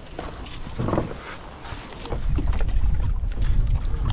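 A few knocks and rustles of gear being handled on a boat deck. About halfway through the clip changes abruptly to a louder low rumble of wind buffeting the microphone out on the water in a kayak.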